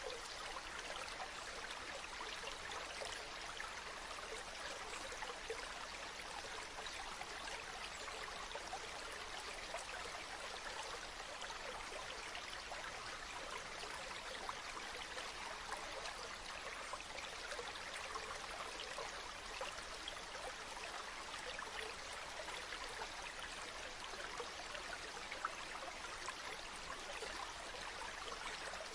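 Small stream flowing steadily over stones, with a continuous babbling and trickling.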